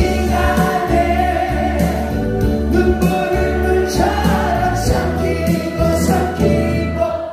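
Trot-song karaoke backing track with a steady bass and drum beat, with voices singing along. The music cuts off abruptly at the very end.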